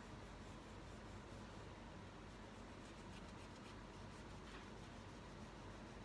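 Faint scratching of a crayon rubbed back and forth on paper, in quick strokes of about five or six a second, clearest in the middle.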